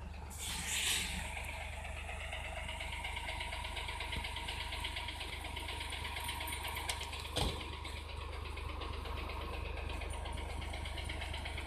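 Ten-wheel truck's diesel engine idling steadily, with a short hiss near the start and a single knock about seven seconds in.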